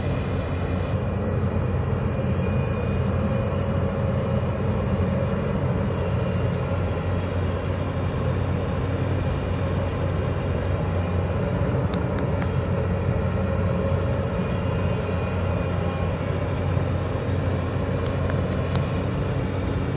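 Hyundai crawler excavator's diesel engine running steadily as the machine works, with a few light ticks about twelve seconds in and again near the end.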